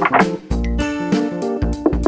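Upbeat background music: a run of quick pitched notes over a steady beat with a low bass thump about every second and a quarter.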